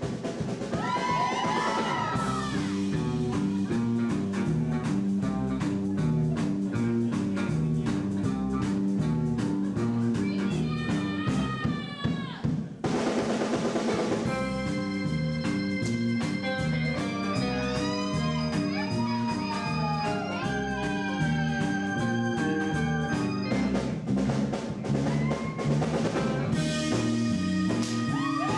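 Live rock band playing: drums and a steady, repeating bass line under an electric guitar lead with bending notes.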